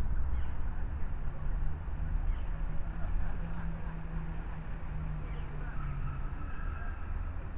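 Outdoor city-square ambience: a steady low rumble of traffic, with an engine hum that comes in and fades out through the middle. Short high bird chirps sound three times.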